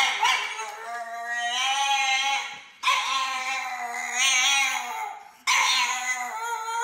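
French bulldog howling in three long, wavering, drawn-out calls, one straight after another.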